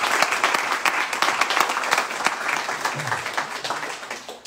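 Audience applauding: dense clapping that thins out and fades over the last second.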